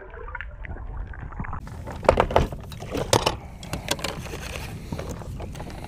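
Muffled, dull water noise with the high end cut off for the first second and a half. It then gives way to a series of sharp clicks and knocks against a boat's hull and deck.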